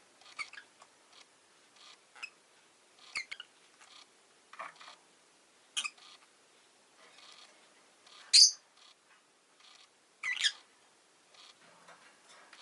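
Rosy-faced lovebird giving short, scattered chirps, about seven in all, the loudest a sharp high call a little past the middle.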